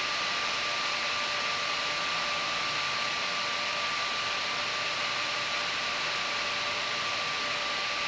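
Steady, even hiss of a powered-up computer test bench, with a faint constant high-pitched whine and no beeps or changes.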